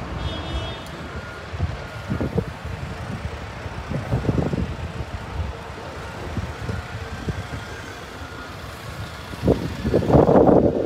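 City buses and street traffic running with a low engine rumble, and a brief high-pitched beeping in the first second. A loud rush of noise builds near the end.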